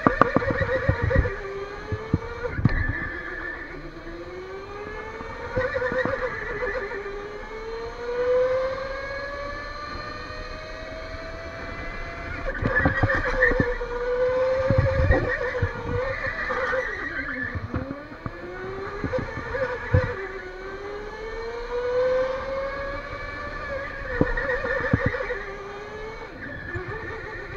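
Electric go-kart's motor whining, its pitch climbing as the kart accelerates and dropping away as it slows for corners, over and over. Loud low rumbles and knocks come and go over it.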